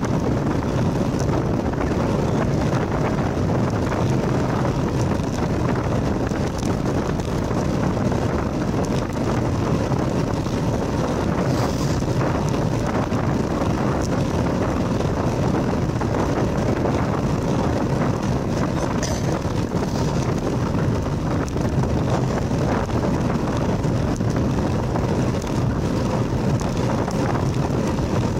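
Steady wind rushing over the microphone of a camera moving along a road: a dense, unbroken low rumble.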